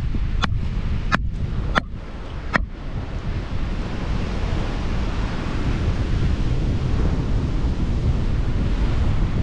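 Steady wind rumble on the microphone with surf behind it. Over it come four sharp taps of a knife striking the chopping board as manta ray flesh is cut, spaced a little under a second apart, all in the first three seconds.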